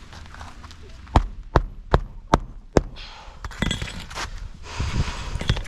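Five quick, evenly spaced hammer strikes driving a roofing nail into an asphalt shingle, followed by scraping and rustling as the shingle is handled.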